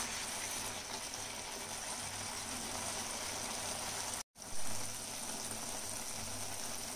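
A curry of flat beans and potatoes sizzling and bubbling steadily in a steel pan while the added water cooks off and the masala roasts. The sound cuts out for an instant about four seconds in.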